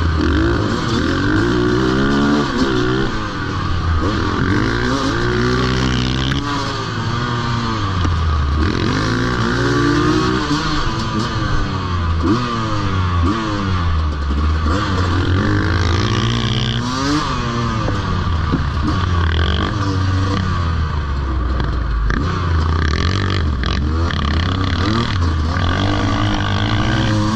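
Two-stroke Sherco enduro motorcycle engine under load, revving up in pitch and falling back over and over every two to three seconds as the rider accelerates and shifts.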